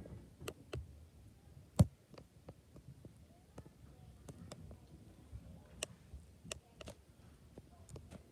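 Scattered light clicks and knocks at an uneven pace, with one sharper, louder knock a little under two seconds in.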